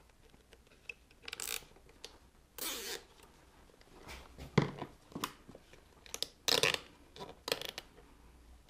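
Nylon cable tie being pulled through its ratchet in several short zipping strokes, with a few sharp plastic clicks, as it is drawn tight to fasten a wire to the motorcycle's subframe.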